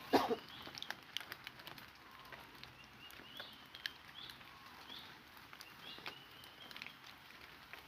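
Forest birds calling with short, repeated high chirps, with a fainter lower whistle now and then. Scattered sharp clicks throughout and a louder rustling burst right at the start.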